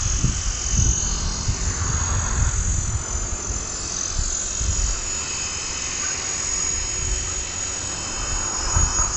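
Radio-controlled model helicopter in flight, its motor and rotors giving a steady high-pitched whine, with wind buffeting the microphone.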